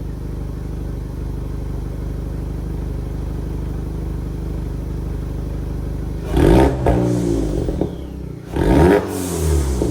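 Volkswagen Jetta's Unitronic Stage 2-tuned 1.4-litre turbo four-cylinder idling steadily, then revved sharply twice, about six and nine seconds in, the pitch rising and falling back each time.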